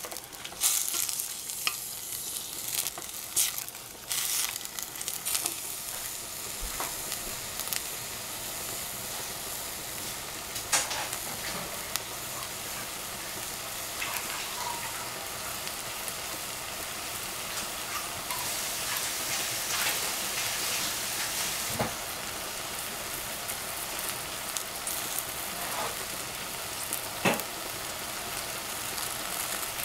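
Oyster mushrooms and cabbage sizzling in a stainless steel saucepan, a wooden spatula scraping and knocking against the pan over the first few seconds. After that, a steady sizzle with an occasional tick.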